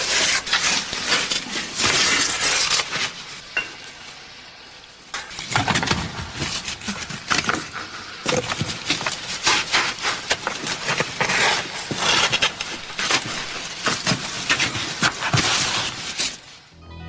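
Rocks and rubble clattering, scraping and breaking loose as someone digs and pries through a cave-in, dense and irregular, with a quieter lull about four seconds in.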